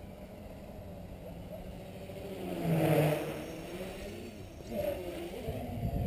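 Quadcopter's four Waypoint 2208 1300kv brushless motors and propellers whining in flight, the pitch wavering up and down with the throttle and swelling loudest about three seconds in, over a low rumble.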